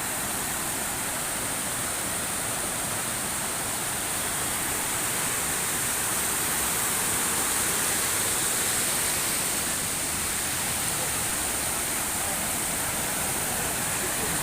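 Waterfall: water cascading in a steady, unbroken rush with a bright hiss.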